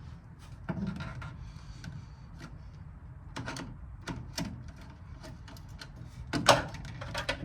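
Hand tools clicking and knocking against metal while the upper radiator hose is being loosened: scattered clicks with one louder knock near the end, over a low steady hum.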